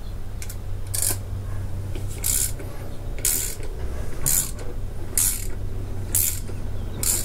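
Hand ratchet wrench clicking in repeated strokes, about one stroke a second, as it turns the nut on a coilover damper's shaft while the shaft is held still with an Allen key.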